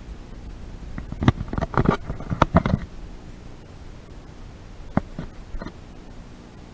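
A quick run of sharp knocks and clicks about a second in, then three lighter knocks around five seconds in.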